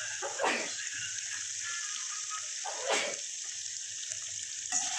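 Chicken pieces frying in hot oil in a steel pan, a steady sizzle, with two brief louder swishes about half a second and three seconds in.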